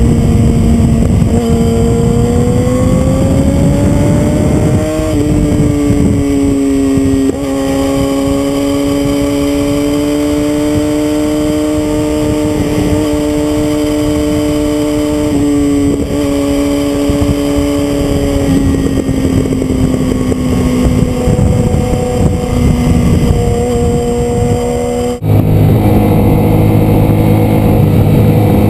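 Motorcycle engine running hard on a ride, heard over heavy low rumble on the camera microphone. Its note holds fairly steady, rises and falls gently with the throttle and dips briefly a couple of times. Near the end the sound cuts suddenly to a different, lower engine note.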